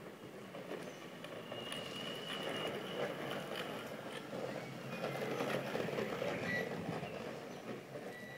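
Longboard wheels rolling over brick paving: a rough, rattling rumble that grows louder twice as the board passes, with a thin high whine about two seconds in.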